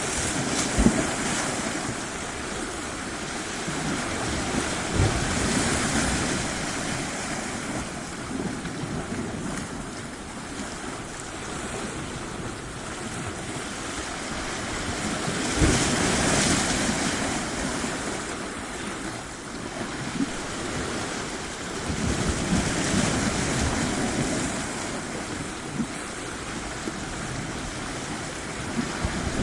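Surf on a shore: waves breaking and washing in, a steady rush that swells and falls back every several seconds.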